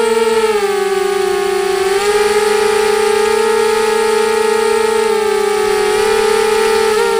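Mini quadcopter's electric motors and propellers whining steadily, heard close up from a camera on the craft. Several close tones from the separate motors shift together with the throttle: the pitch dips slightly about half a second in, comes back up about two seconds in and wavers again near the end.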